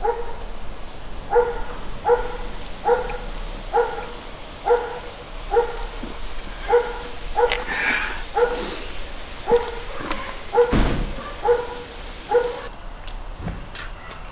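A dog barking over and over, a short bark a little under once a second, stopping about two seconds before the end. A dull thump sounds about eleven seconds in.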